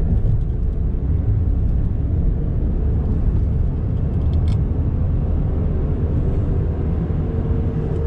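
Hyundai Creta at speed heard from inside the cabin: a steady low humming drone under the road noise. It grows with road speed and is muffled like a scooter's silencer, and the owner suspects a worn front wheel bearing, most likely on the right.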